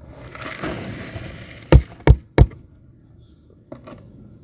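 Rustling scrape for about a second and a half, then three sharp knocks in quick succession and a faint click near the end: objects being handled and set down on a hard surface.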